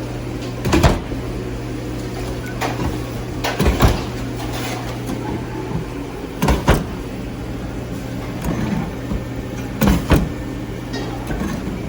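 Kitchen work on a steady low machine hum, with a short clunk about every three seconds, four in all.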